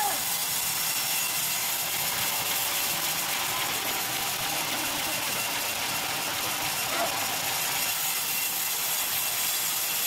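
Electric band sawmill running with a steady hiss, with two short chirps: one at the start and one about seven seconds in.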